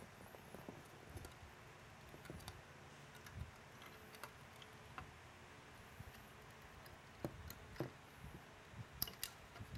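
Faint, scattered light clicks and taps of a plastic strobe beacon base and its power supply circuit board being handled as the wires are fed through the base.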